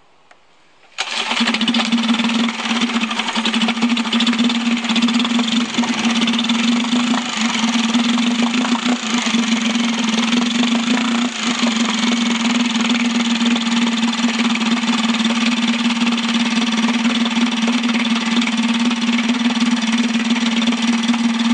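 Mercury 2.5 hp outboard engine running steadily at an even speed after its powerhead rebuild, coming in abruptly about a second in.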